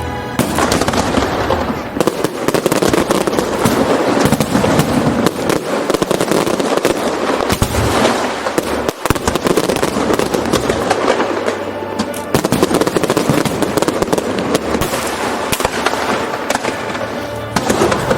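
Fireworks display: dense, continuous crackling and popping of bursting shells, with show music playing underneath.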